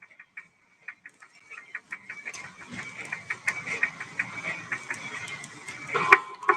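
Rapid, irregular clicking and light rattling, sparse at first and growing denser from about two seconds in.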